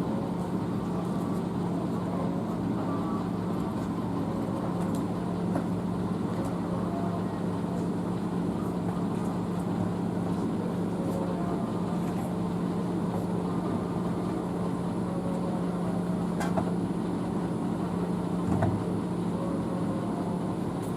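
An engine running at a steady speed, a constant low hum that neither rises nor falls, with a couple of faint clicks near the end.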